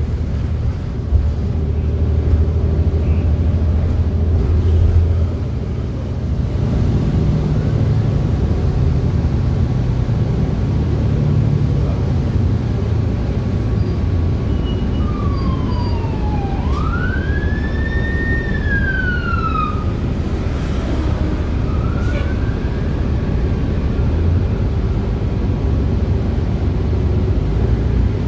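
City bus running, a steady low rumble heard from inside, with an emergency vehicle's siren wailing up and down for several seconds around the middle.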